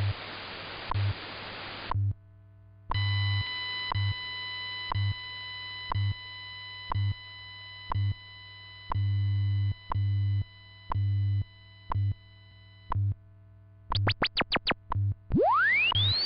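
WWV time-station broadcast of the HamSCI scientific modulation test signal. It opens with about two seconds of hiss, then a chord of steady high tones for about ten seconds, then a quick flurry of short chirps and, near the end, long rising chirp sweeps. Underneath, the station's once-a-second ticks and low 100 Hz time-code tone keep going.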